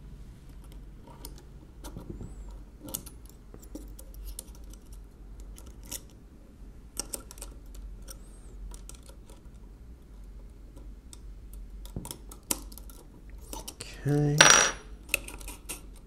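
Scattered, irregular light metallic clicks and taps from a pick and a screwdriver working a small steel spring into the mechanism of a 1920s Monroe mechanical calculator.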